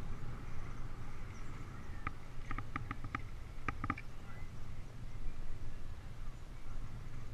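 Steady wind and tyre rumble of a bicycle rolling along a paved path, with two quick runs of short, high pings about two to four seconds in.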